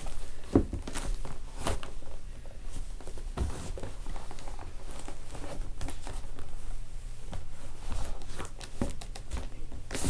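Cowboy boots stepping and stomping on a pair of leather work boots on a hardwood floor: irregular thuds, knocks and scuffs.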